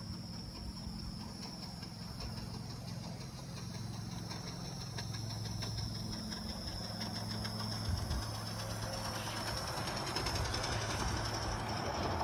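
Live steam model locomotive running on its track, getting gradually louder toward the end, with faint rhythmic ticking over a steady high-pitched tone.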